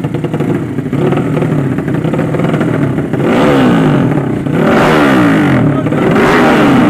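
Drag-racing motorcycle with a 200cc horizontal-cylinder engine running loudly, then revved hard three times in quick succession, each rev a sweep in pitch about a second long.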